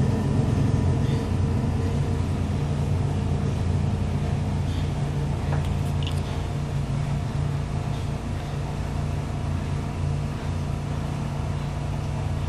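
Steady low electric motor hum at an even level, with a few faint clicks of small metal parts being handled.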